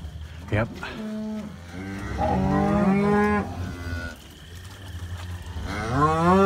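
Black beef cows and calves mooing in a pen. One call comes about a second in, then two overlapping calls, and near the end a long, loud moo rises and is held. The cattle are not happy.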